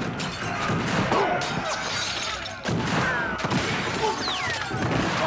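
A chaotic struggle: repeated sharp gunshots and crashing impacts, with men shouting and crying out.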